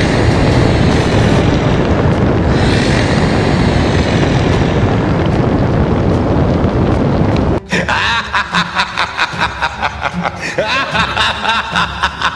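Dense, loud explosion-and-rumble sound effects that cut off abruptly about seven and a half seconds in. After the cut comes a fast, regular run of sharp clicks or shots over background music.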